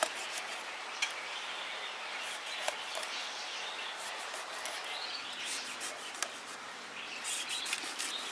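A large knife scoring a whole red snapper: quiet scraping, with a few short sharp clicks as the blade cuts through scales and skin, over a steady background hiss.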